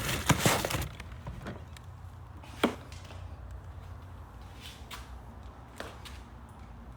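Plastic packaging crinkling as parts are handled, then a few light knocks and clicks of parts being set down, one sharper than the rest.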